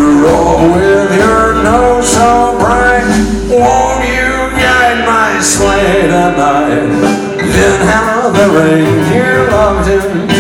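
Rockabilly band playing live: an electric guitar lead over upright bass and drums, an instrumental break between sung verses.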